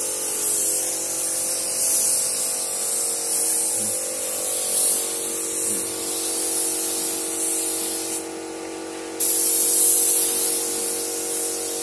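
Gravity-feed spray gun spraying clear coat onto a scooter's body panel: a steady hiss of compressed air and atomised lacquer that stops for about a second around eight seconds in, then starts again. A steady hum runs underneath.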